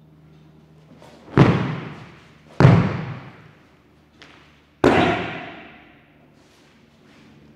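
Bodies and arms slapping the mats in three jujitsu breakfalls: a right forward rolling breakfall, a backward rolling breakfall and a front breakfall. The three slaps are sharp and loud, a second or two apart, and each rings out briefly.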